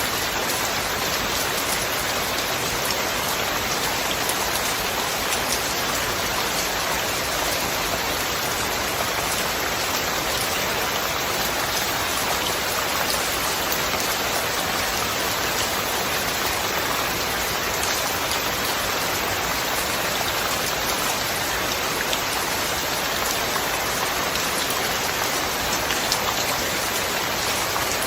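Steady, even rain falling, with many fine drop ticks among the hiss.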